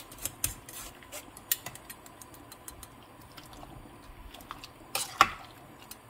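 A metal spoon stirring and scraping doenjang through a fine mesh strainer in a stainless steel pot of soup, with light clicks of metal on mesh; a sharp metal clink about five seconds in, the loudest sound, as spoon or strainer knocks against the pot. The paste is being dissolved into the broth while the soybean husks stay in the strainer.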